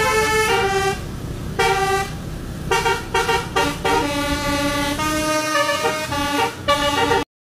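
Basuri telolet horn on a Putera Utama bus playing a tune of short, changing horn notes over a low rumble, with a short pause about a second in. It cuts off suddenly near the end.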